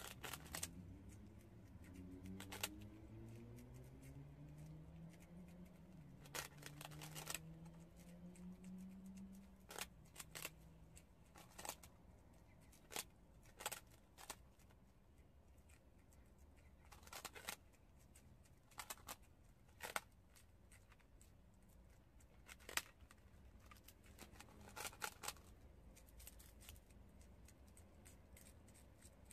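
Prairie dogs nibbling puffed rice cakes: short bursts of crisp crunching come every second or two, some in quick clusters. Under them a faint low hum rises slowly in pitch over the first ten seconds.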